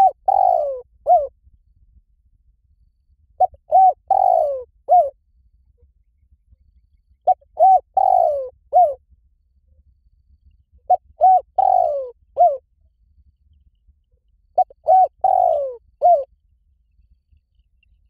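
Spotted dove cooing: the same phrase five times, about every four seconds, each a couple of short coos, one longer falling coo and a short closing coo.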